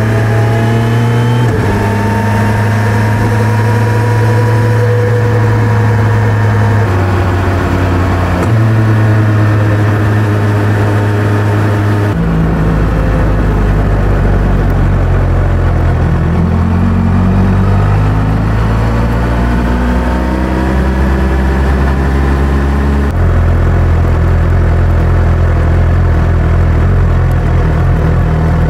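Suzuki Hayabusa's inline-four engine and exhaust running under way, recorded on the bike. The note jumps abruptly in pitch several times and glides up and down in between as the throttle and speed change.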